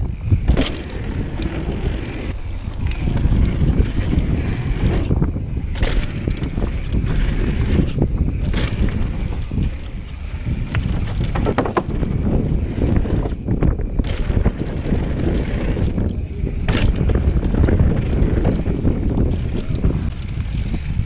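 Downhill mountain bike ridden fast, with tyres rumbling over dirt and wooden trail features and the bike clattering over bumps in frequent sharp knocks. Steady wind rushes over the camera microphone.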